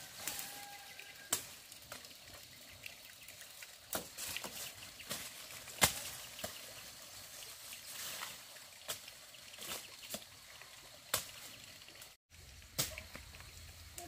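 Dry sugarcane stalks and leaves crackling and snapping as they are handled, in sharp irregular clicks roughly once a second over a light hiss.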